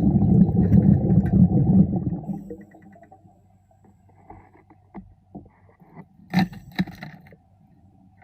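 Underwater, a diver's exhaled bubbles rumble loudly and fade out after about two seconds. A few short knocks and clicks follow.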